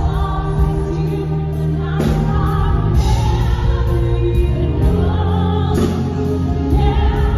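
Two women singing a power-ballad duet live with instrumental accompaniment, their voices holding long notes over a steady bass.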